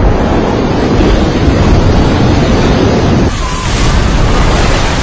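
Loud, continuous rushing noise with a deep low end from a giant underwater explosion's water column. About three seconds in it changes abruptly to the rush of a large wave surging onto a beach.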